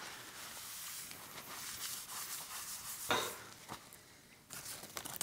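Gloved hands rubbing and rustling on a paper shop towel, a soft, steady scratchy rustle with a sharper scuff about three seconds in and a few brief ones near the end.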